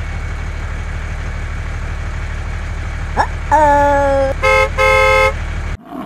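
Tractor engine sound effect running with a steady, even chug, and a vehicle horn honking three times starting about three and a half seconds in, the first honk the longest. The sound cuts off just before the end.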